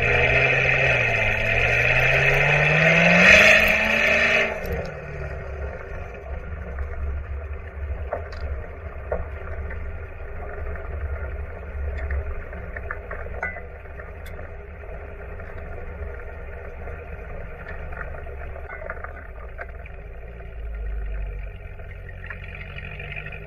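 Supercharged Corvette C7 V8 heard at its exhaust tips while driving. The engine note rises, dips and rises again under acceleration for about four and a half seconds, then drops to a quieter steady cruise with road noise and a few light ticks.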